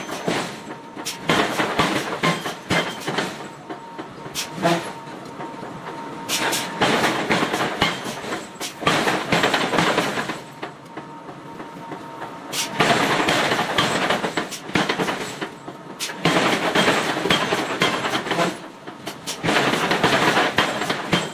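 Hammer blows on hot iron being forged into bar. They come in quick runs of several seconds each, separated by short pauses.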